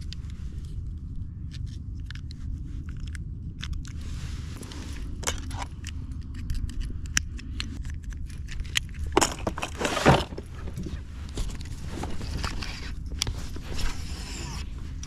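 Handling noises on a fishing kayak: scattered clicks and scrapes of gear being handled, with a louder scrape about nine to ten seconds in, over a steady low rumble.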